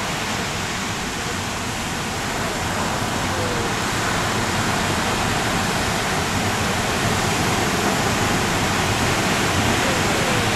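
Steady, even rushing of surf and wind.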